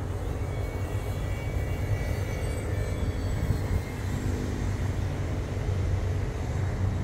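Small RC plane's motor and propeller droning overhead, the hum coming in more clearly about four seconds in, under a steady low rumble.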